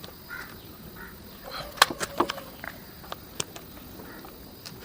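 Sharp clicks and knocks of a motorcycle battery-box retaining clip being undone by hand. They come in a quick cluster about two seconds in, with one more knock later. Faint bird calls sound in the background.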